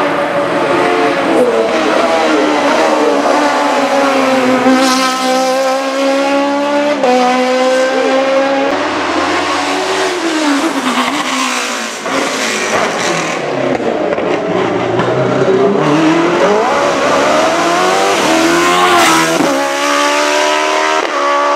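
Racing car engines at high revs, several cars one after another. Each engine's pitch climbs under hard acceleration, then drops at gear changes and on lifting for corners.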